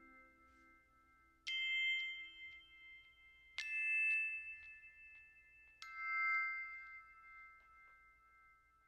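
Background music ending on three struck chime-like notes about two seconds apart, each ringing out and slowly fading. The tail of a plucked-string tune dies away in the first second or so.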